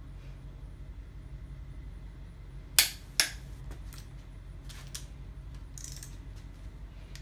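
Click-type torque wrench clicking twice in quick succession, a little under three seconds in, as a cylinder-head stud nut reaches its final 70 ft-lb torque setting, followed by lighter metal clinks of the socket being moved onto the next nut.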